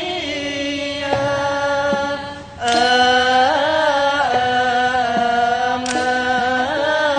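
Khmer mahori ensemble performing: a mixed chorus sings long held notes together over traditional instruments. There is a brief lull about two and a half seconds in, then the music comes back in on a sharp struck accent, and there is another strike near the end.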